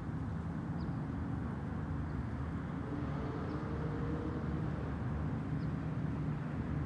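Dodge Challenger Scat Pack's 6.4-litre Hemi V8 idling steadily through straight pipes with no cats or mufflers, a low, even rumble.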